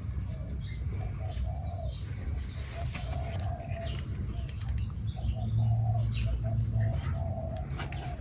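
Birds calling: a low, repeated cooing call and short high chirps over a steady low rumble.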